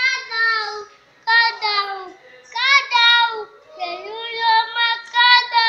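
A small child singing in short, high-pitched phrases with brief pauses between them.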